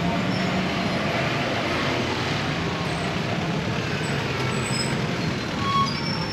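Steady street traffic: the running engines and tyres of passing vehicles, with a few faint short high tones above it.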